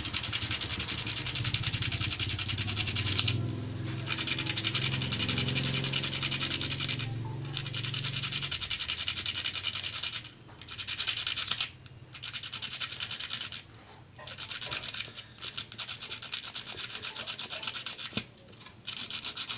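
A thin fish-dart rod rubbed rapidly back and forth on sandpaper to grind its tip to a point. It makes a fast rasping scrape in runs of a few seconds with short breaks between them.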